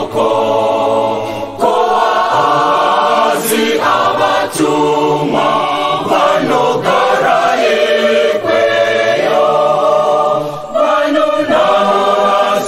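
A choir singing, several voices together in harmony, in phrases a second or two long with short breaks between them.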